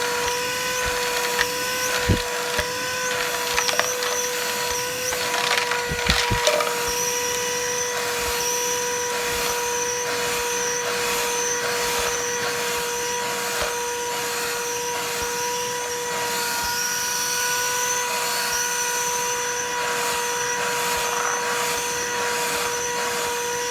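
Ganiza cordless handheld vacuum running steadily with a constant high motor whine, with brief clattering knocks about two and six seconds in as debris is picked up.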